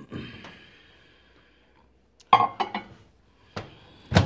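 A bowl being put into a microwave oven: a few sharp clinks and knocks about halfway through as it is set down inside, then the microwave door shut with a thump near the end.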